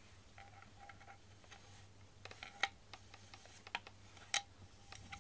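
Scattered sharp clicks and light scrapes from a cat rubbing its cheek and chin against a wooden frame corner, a few of them louder, over a faint steady low hum.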